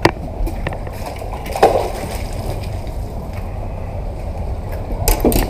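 A few knocks and short clatters of fishing gear being handled in a boat, the loudest near the end, over a steady low rumble.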